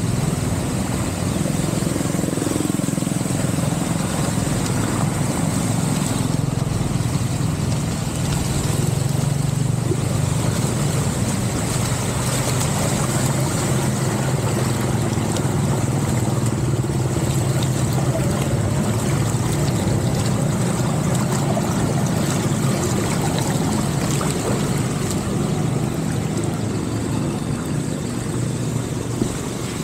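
Small motorcycle engine running steadily at idle with a low, even hum. A wash of noise from running water sits under it.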